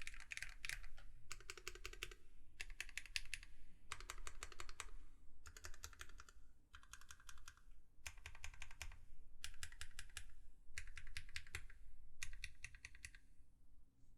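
Typing on an LZ CLS mechanical keyboard with Krytox 205g0-lubed Gateron Milky Yellow linear switches, an aluminium plate and PBT keycaps. Quick runs of keystrokes come in short bursts with brief pauses between them, and stop about a second before the end.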